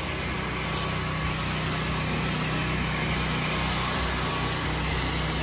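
Gas engine of a soft wash pump system running at a steady speed, with a constant hiss of water spraying from the nozzle. The soap mix has not yet reached the nozzle, so it is still spraying plain water.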